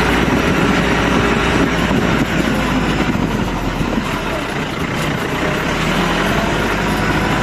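Jeep engine running as it drives on a rough dirt track, a steady, loud mechanical noise.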